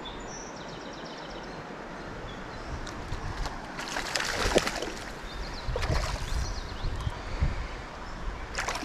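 Hooked rainbow trout splashing at the surface while being played on a rod, a loud splash about four seconds in and a smaller one about two seconds later.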